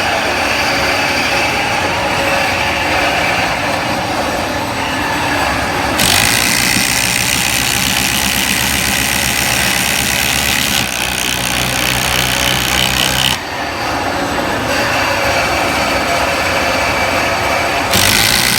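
Cordless impact drivers, a Milwaukee M12 Fuel and a Makita 18 V subcompact brushless, hammering as they drive 5.5-inch LedgerLok structural screws into a treated 6x6 post. The hammering changes in character abruptly several times, at about 6, 11, 13 and 18 seconds in.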